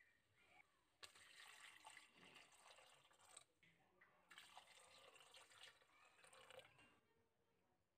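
Water poured into a steel pressure cooker onto dried peas and potatoes, splashing and filling. It starts about a second in, pauses briefly in the middle, then goes on until near the end. It is faint.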